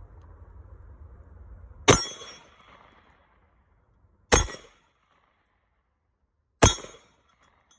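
Three single handgun shots, about two and a half seconds apart, each a sharp crack with a short ringing decay.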